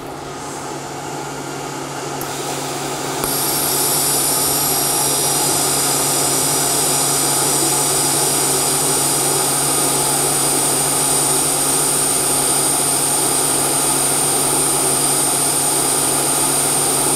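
TIG (GTAW) welding arc on thin titanium sheet with argon shielding, running at about 35 to 40 amps as the weld is laid along the joint. The sound builds over the first few seconds as the arc starts, steps up about three seconds in, and then holds as a steady bright hiss and buzz over a low hum.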